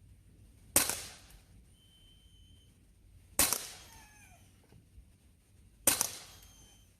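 Sig P320 X-Carry CO2 blowback air pistol fired three times, one sharp crack every two and a half seconds or so, each followed by a short fading tail.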